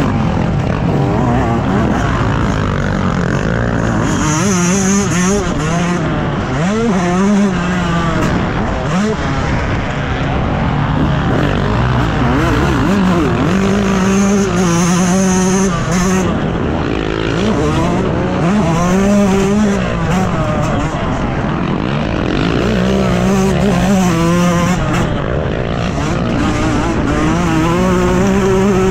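Motocross dirt bike engine at race pace, its pitch climbing and falling again and again as the throttle opens and shuts, holding high for a second or two at a time.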